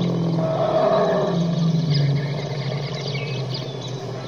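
Wild Asian elephant calling: a low, steady rumbling roar that grows fainter after about two seconds.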